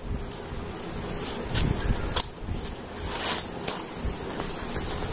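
Scissors snipping through packing tape and cardboard, with the cardboard rustling and crackling as the box flaps are pulled open: several short, sharp snips and crackles.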